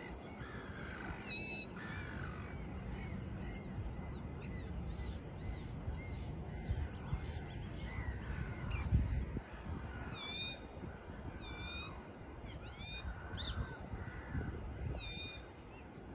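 Birds calling at a lakeside: many short, repeated arched chirps and some harsher calls, over a low, steady rush of wind and water. A brief low rumble about nine seconds in.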